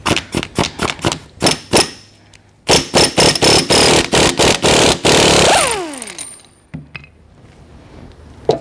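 Impact wrench hammering on a fastener: several short bursts, then a longer run of about three seconds, with the motor winding down in a falling whine after the trigger is released.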